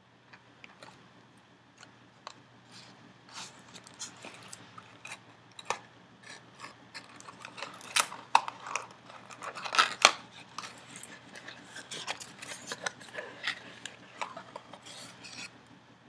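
Hands opening a small cardboard box and taking out a glass ink bottle: cardboard rubbing and scraping with a run of clicks and taps, the sharpest about eight and ten seconds in.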